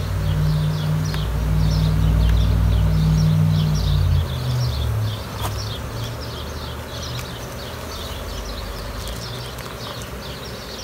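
Honeybees buzzing around the entrance of a mating nuc, under a louder low drone that fades out about four seconds in. Quick high chirps repeat throughout.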